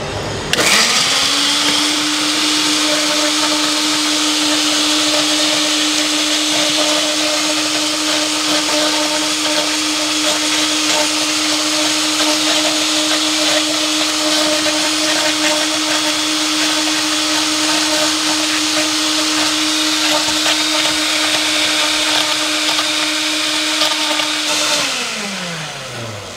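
Countertop jar blender blending strawberries and blueberries with milk into a shake: the motor starts about half a second in and runs with a steady whine at one pitch for about 24 seconds. Near the end it is switched off and winds down, its pitch falling.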